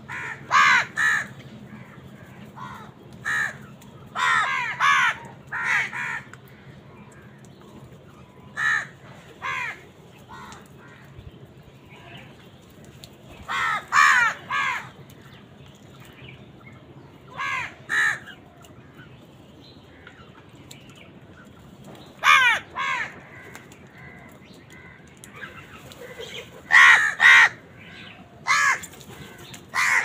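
A flock of house crows cawing: harsh caws in short runs of two or three, coming every few seconds with brief lulls between.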